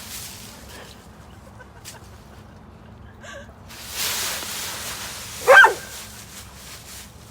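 Dry leaves rustling as a dog plunges through a big leaf pile, then one short, loud animal call about two seconds later.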